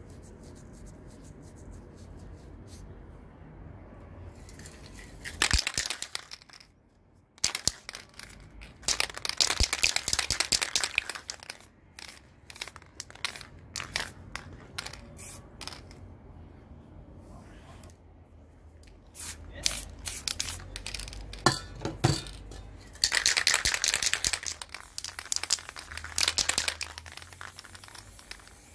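Aerosol spray paint can hissing in several bursts of a few seconds each, with short clicks and knocks between them as the cans and a plastic lid are handled.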